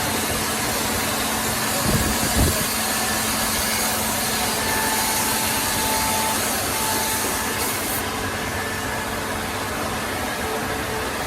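Four-axis CNC wood router running, machining wood: a steady hiss and whine from the spindles and cutting, with two short knocks about two seconds in.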